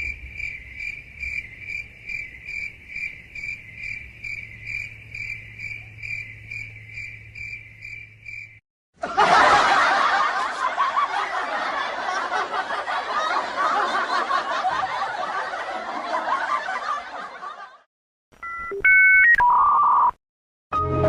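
A run of stock sound effects. First, crickets chirping about twice a second for some eight seconds. Then about nine seconds of crowd laughter. Near the end come a few short telephone keypad tones and a steady beep.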